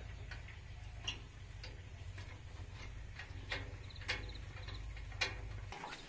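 Sharp metallic clicks, about one every half second, from a hand tool working a loose bolt on the sheet-metal front grille panel of a Case 851EX backhoe loader. A low steady hum runs underneath and stops shortly before the end.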